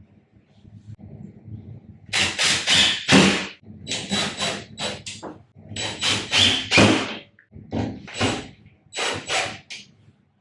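Cordless drill-driver running in short, irregular spurts, driving drywall anchors and screws for mirror clips into the wall.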